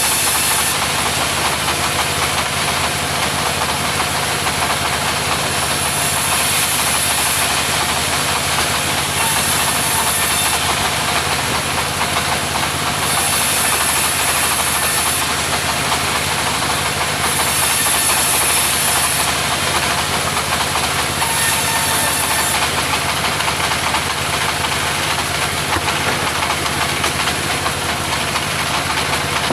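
Mobile sawmill running steadily on its engine while sawing timber, with a higher hiss that swells for a second or two every few seconds as the blade cuts.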